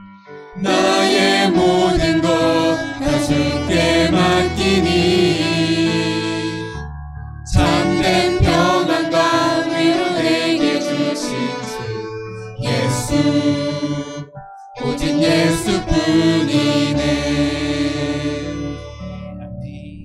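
Small worship team of mixed voices singing a slow praise song with violin and keyboard, broken by two short pauses and fading out on the last chord near the end.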